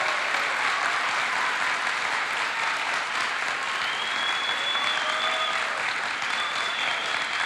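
A large crowd applauding steadily at the close of a speech, a dense even clapping with a few high whistles in the second half.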